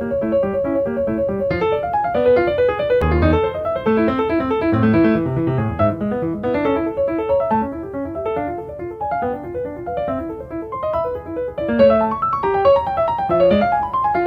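Background piano music: a continuous run of short notes, a higher melody over lower notes.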